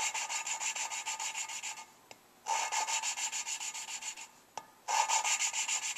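A valve being hand-lapped into its seat in a Suzuki G16A 1.6 L 16-valve cylinder head with coarse grinding compound and a suction-cup lapping stick, giving a rapid back-and-forth grinding, scratching sound. It comes in three bouts of about two seconds, with short pauses and one light tap as the valve is lifted and turned. The grinding sound at the start of each stroke means the valve and seat are not yet fully lapped in.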